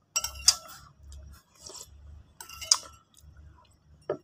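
Metal spoon clinking and scraping against a ceramic bowl, a few sharp clinks with a brief ring, with soft chewing in between.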